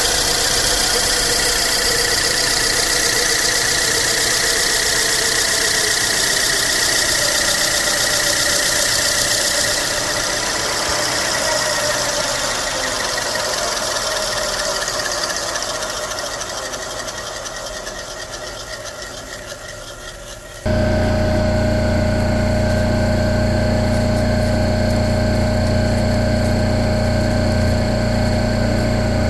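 Manual metal lathe running, its cutting tool shaving a spinning foam workpiece, a steady hiss over the motor. About two-thirds of the way through, the sound fades away, then a steady machine hum comes in abruptly.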